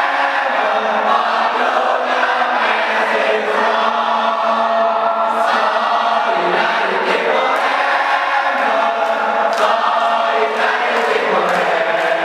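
Many voices singing together in a choir-like chant, sustained and unbroken, with a few sharp accents in the second half.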